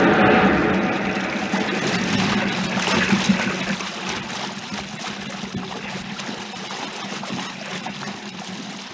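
Sound effect of a huge wave breaking over a small boat: rushing, splashing water, loud at first and dying away over several seconds, with a low steady hum beneath.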